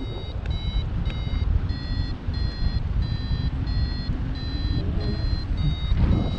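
Paragliding variometer beeping about twice a second, its pitch shifting slightly from beep to beep, signalling that the glider is climbing in a thermal. Wind rumbles on the microphone underneath.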